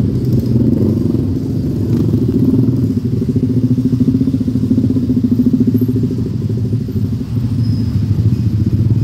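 Several motor scooters and motorcycles running slowly close by, their engines making a steady low drone.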